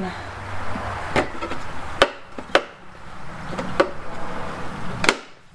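Hard plastic motorcycle pannier knocking and scraping against its mounting rack as it is slid in and seated, five sharp knocks with the loudest clunk near the end as it goes into place.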